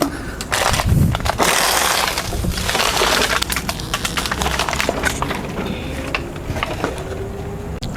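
Footsteps crunching through dry leaves and brush, with irregular snaps of twigs and a spell of heavy rustling a second and a half to three and a half seconds in.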